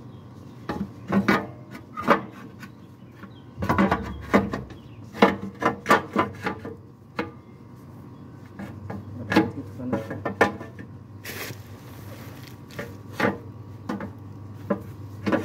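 Irregular knocks, clicks and scraping of the oil pan on a Toyota 2AZ-FE engine as it is worked loose from the block and lowered by hand. A short hiss comes about eleven seconds in.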